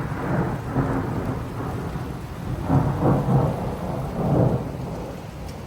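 Thunder rolling in several low swells after a lightning strike, echoing as it rumbles and slowly fades.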